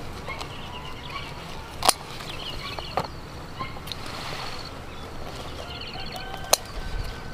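Small birds calling with quick high trills several times over a quiet rural background, and scissors snipping pepper stems with a few sharp clicks, the loudest about two seconds in and near the end.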